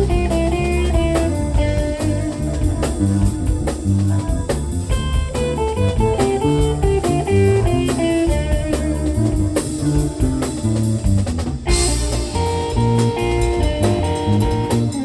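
Live band playing an instrumental: a quick, note-by-note lead line over bass and drum kit, with a cymbal crash about twelve seconds in.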